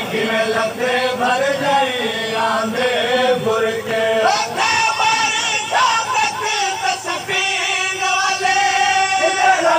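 Men's voices chanting a Shia mourning lament (noha) together, in long held, wavering lines that run on without a break.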